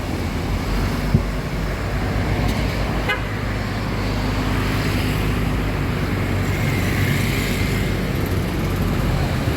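A motor vehicle's engine running steadily with road and traffic noise around it.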